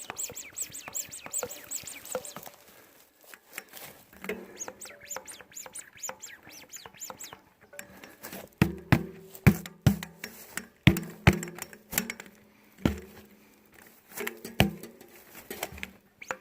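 Bicycle hand pump being worked to inflate a tubeless mountain bike tire, in quick squeaky strokes at first and then in harder, louder strokes from about halfway through, often in pairs. The tire is being reinflated after a sidewall tear was patched.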